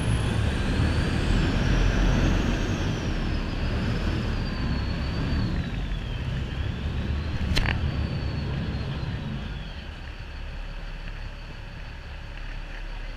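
Small boat's engine rumbling under rushing wake water and wind, with a faint high whine wavering in pitch over it. A single sharp click comes a little past halfway, and the noise drops off about ten seconds in.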